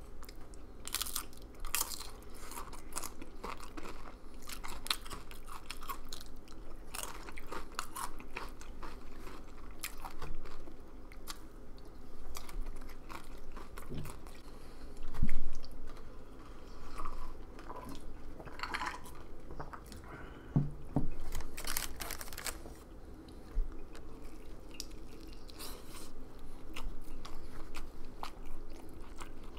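Close-miked crunching and chewing of crisp tortilla chips (nachos), with repeated sharp crackles of biting. Near the end comes softer chewing of a bite of burrito.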